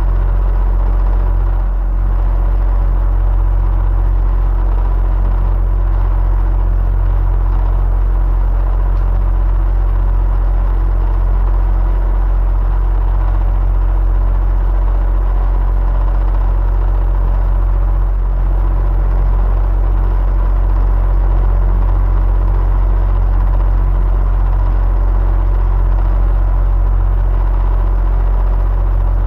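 Electric fan running steadily: a continuous low rumbling whir with a faint steady motor hum above it.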